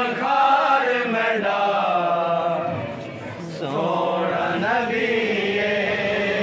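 Men's voices chanting a devotional recitation in praise of the Prophet, with a lead man singing long held notes. The chant dips briefly about halfway through, then carries on.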